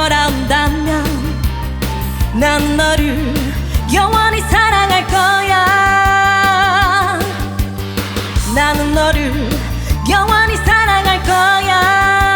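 Live trot song with band backing: a steady bass and beat under a lead voice that holds long notes with vibrato.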